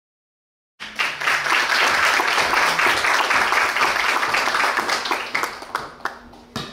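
An audience applauding, starting abruptly a little under a second in after silence and dying away near the end. A single sharp knock comes just before the end.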